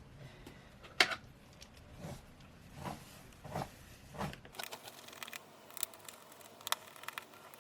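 Light clicks and taps of a small screwdriver and tiny screws being undone in a smartphone's frame: one sharp click about a second in, four softer taps, then a run of faint ticks in the second half.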